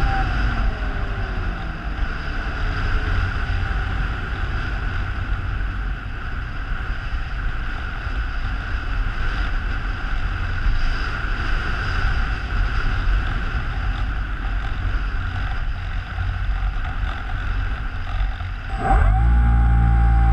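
Electric motor and propeller of an RC flying wing winding down as the throttle is cut, falling in pitch, then wind rushing over the airframe and the onboard camera as the plane glides. Near the end the motor spins up quickly to a steady, louder whine.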